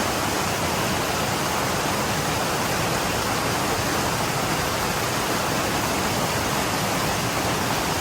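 Waterfall rushing: the steady, even noise of falling water, unchanging throughout.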